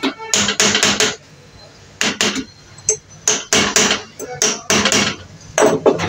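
Hammer blows on the top end cover of a 0.75 kW submersible pump motor, knocking it down into the metal motor casing to close the motor. Sharp metal strikes come in quick runs of three or four with short pauses between them.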